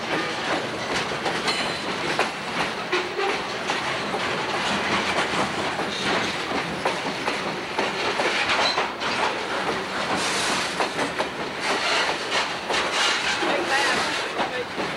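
Freight train's boxcars and covered hopper cars rolling past, steel wheels clacking over rail joints over a steady rumble.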